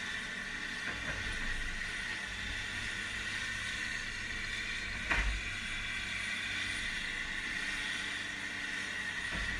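Heavy earthmoving machinery running steadily with a hissing wash and low rumble, with one sharp clunk about five seconds in.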